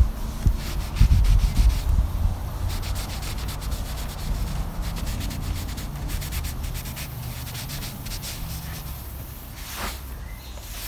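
Cloth rags rubbing over carved timber in quick, irregular strokes, buffing surplus oil finish off the wood to a polish. A low rumble sits under it, loudest about a second in.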